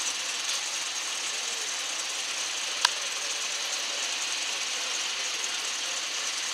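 Class 101 diesel multiple unit running as it moves slowly out of the tunnel, a steady mechanical engine noise, with one sharp click about three seconds in.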